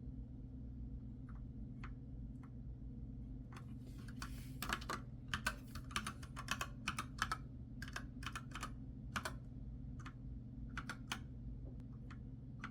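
Keys being typed on a computer keyboard, over a steady low hum. A few scattered keystrokes come first, then a quick, irregular run of clicking keystrokes lasts several seconds and stops shortly before the end.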